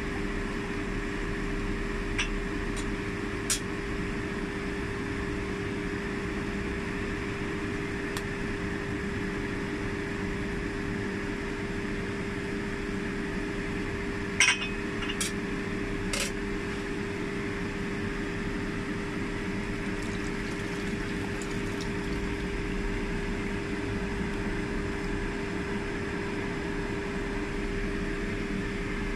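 Pot of fish soup boiling on the stove over a steady motor-like hum. A few short clinks come about halfway through.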